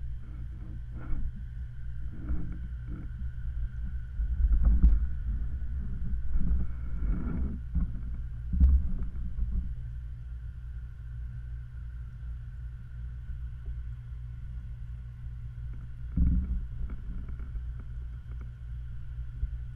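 Muffled underwater sound of a koi pond picked up by a submerged camera: a steady low rumble with a faint steady hum above it. A few short dull knocks come through, the strongest about five, nine and sixteen seconds in.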